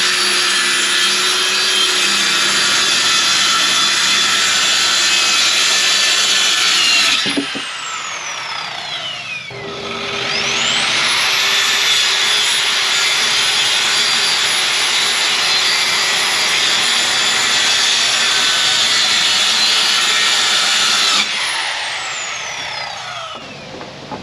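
Electric power saw cutting wood, its high whine running steadily, then winding down about seven seconds in. It spins back up with a rising whine a couple of seconds later, runs on, and winds down again near the end.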